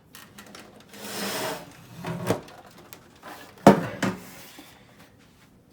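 Handling knocks and clicks on a desktop computer case while it is being powered on: a short rustle about a second in, a knock a little after two seconds, then a sharp thump, the loudest, with a second knock just after it, a little under four seconds in.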